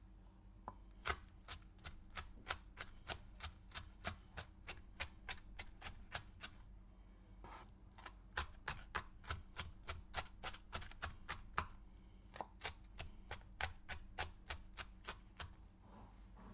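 Knife chopping a pepper: quick, even strokes at about three a second, in three runs with short pauses between them.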